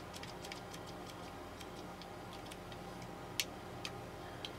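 Leatherman Surge multitool being handled: faint, scattered small metal clicks as its tools are worked, with one sharper click about three and a half seconds in.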